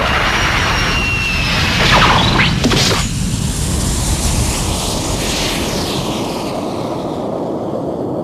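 Sound effect of a sustained, noisy rumble, like a blast or a jet passing. A high whistle falls in pitch over the first two seconds, and two quick sweeps cut through around two to three seconds in. The rumble eases off a little in the second half.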